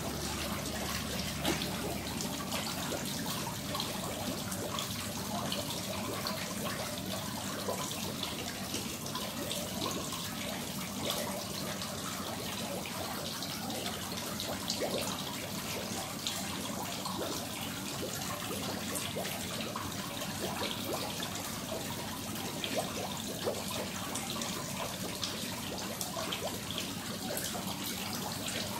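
Pond water splashing and trickling as a crowd of koi churn the surface while feeding, with many small splashes and slurps.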